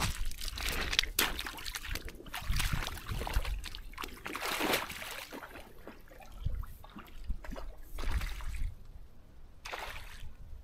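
Boots wading through shallow river water, irregular splashing and sloshing, heaviest in the first half and thinning out later, with one more splash near the end.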